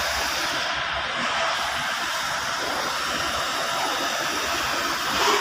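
Steady hissing noise that holds at an even level.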